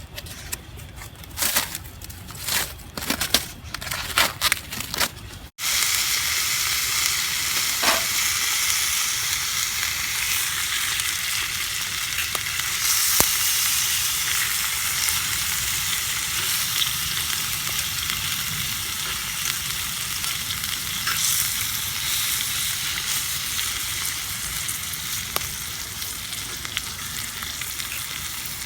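Pork offal (horumon) frying in a cast-iron skillet: a steady, dense sizzle. Before it, a few seconds of scattered clicks and knocks that cut off abruptly.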